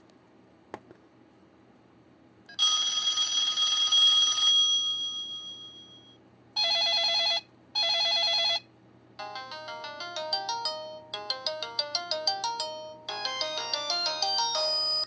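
LG C1300 mobile phone playing its built-in ringtones. A click comes about a second in, then a chime that fades over a few seconds, then two short warbling beeps. After that comes a quick electronic melody of many short notes, which cuts off suddenly at the end.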